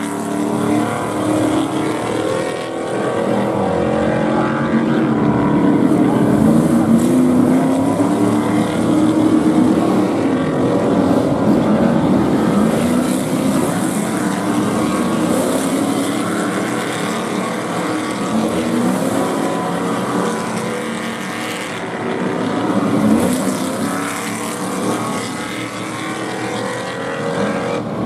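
Stadium Super Truck V8 engines running hard as several race trucks drive the street circuit, their engine notes rising and falling repeatedly as the drivers accelerate and lift.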